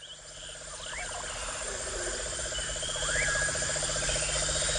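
Night chorus of insects and frogs fading in: a steady high insect hum with a rapid low pulsing trill, and a short rising-and-falling chirp repeated three times about two seconds apart.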